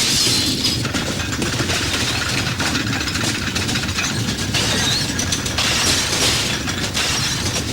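Earthquake sound effect: a continuous low rumble with rattling, crackling and breaking noises that swell and ease off.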